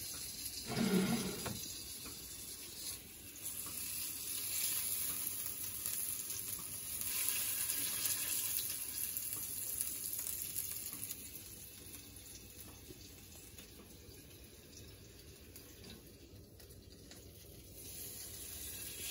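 Paneer kababs sizzling in oil on a hot grill pan, a steady hiss that grows softer in the second half. A brief knock about a second in.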